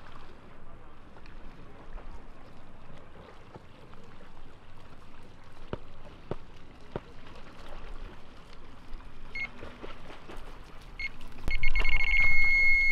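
Electronic carp bite alarm going off: a few short bleeps, then a loud continuous high tone for the last second and a half. This is the sign of a carp running with the line.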